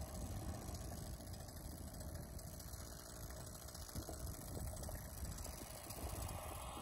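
Small gas engine idling, growing louder near the end, over a low rumble.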